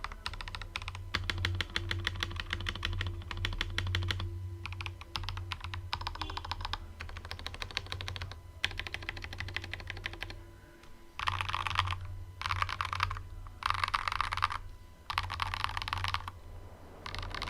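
Typing on an Akko 5075S gasket-mounted 75% keyboard with a polycarbonate plate, Akko Crystal Blue polycarbonate linear switches and PBT keycaps. The keystrokes clatter in fast runs of a second or two with short pauses between, and the runs in the second half are louder and brighter.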